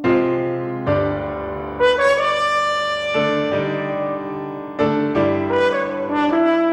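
Music: piano chords struck every second or so under sustained brass notes, likely a trumpet.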